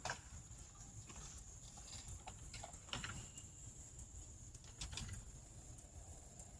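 Chickens moving about: faint, scattered short taps and scratchy sounds, a little louder near the start, around the middle and again near the end.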